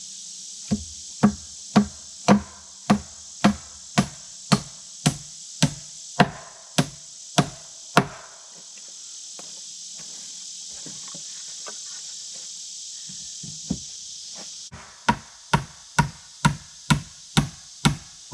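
Hammer driving nails into wooden boards: a run of about fourteen even blows, roughly two a second, then a pause of several seconds and another run of about seven. A steady high buzz of insects runs underneath.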